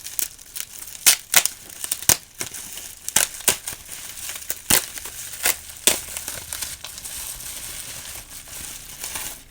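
Bubble wrap being handled and pulled open around a package of playing-card decks, crinkling with many sharp crackles. The crackles come thick for the first six seconds or so, then it settles to a quieter rustle.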